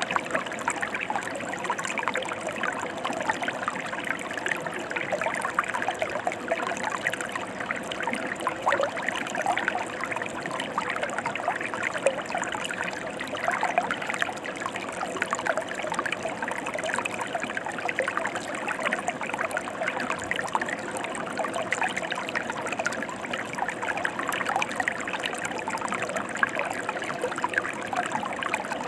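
Mountain stream flowing steadily, a continuous babbling trickle of water over its bed with no breaks or changes.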